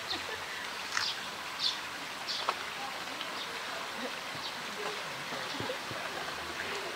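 Steady rush of running water, with a handful of short, high bird chirps, most of them in the first few seconds.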